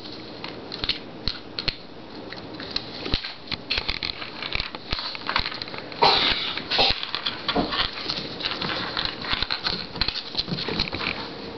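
West Highland white terrier puppy scrabbling on a hardwood floor and gnawing a Milk-Bone dog biscuit: a rapid, irregular run of claw clicks, crunches and crackles, loudest about six seconds in.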